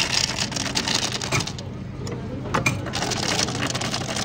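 Ice from a restaurant ice dispenser clattering into a drinking glass: a rapid rattle of many small impacts in two runs, the second starting about two and a half seconds in.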